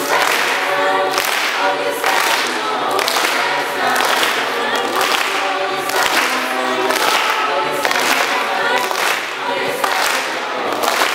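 Mixed-voice choir singing a cappella in several-part harmony, with rhythmic hand clapping about once a second.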